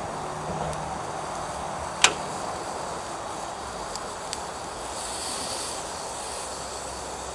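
Burgers sizzling in a pan on a portable gas camp stove, a steady hiss of frying and burner. A single sharp click comes about two seconds in, and a fainter one a couple of seconds later.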